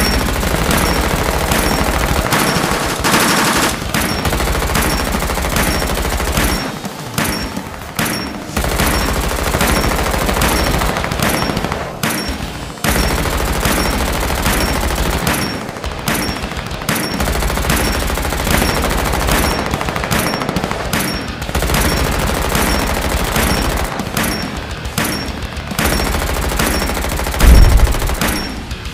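Dubbed-in automatic gunfire sound effects: long bursts of rapid machine-gun fire with a few short pauses, and a heavy explosion boom near the end.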